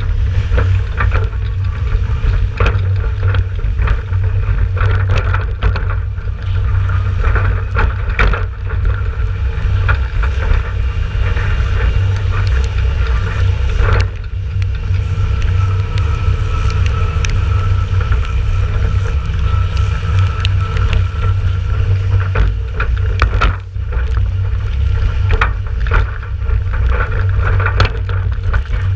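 Empty farm trailer being towed along a wet road: a constant low rumble with wind buffeting the camera, and frequent knocks and rattles from the trailer body.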